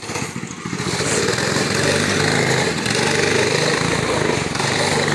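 Small go-kart engine running as the kart drives over leaf-covered ground, a steady buzzing drone that comes up over the first second and then holds.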